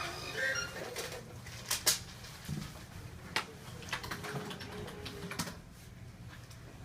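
Scattered light clicks and taps at an irregular pace over a low room hum.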